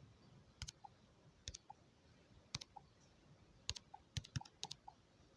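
Faint, irregular key clicks, about a dozen, some in quick pairs, as keys are pressed one by one to work out an arithmetic sum.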